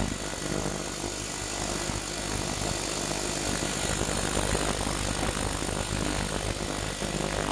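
Ultrasonic cleaner (a 6.5-litre Sonic Wave tank) running mid-cycle with its lid off: a steady hiss from the bath with a thin high whine over it, unchanging throughout.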